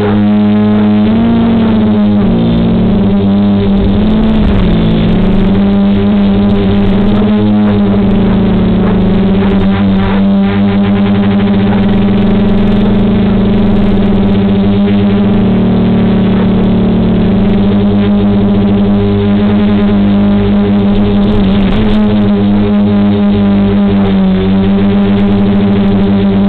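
DJI F450 quadcopter's four DJI 2212 920KV motors spinning 9.5-inch propellers: a loud, steady hover hum. Its pitch wavers as the throttle is corrected, mostly over the first few seconds and again near the end.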